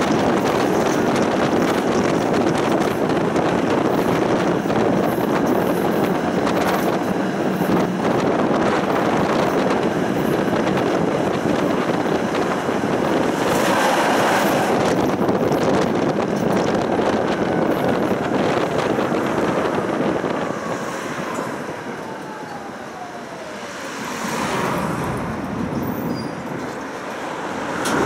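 Running noise of a Budapest tram heard from on board, its wheels rolling on the rails, with a louder rush about halfway through as another tram passes close alongside. In the second half the noise drops and a whine falls in pitch as the tram slows.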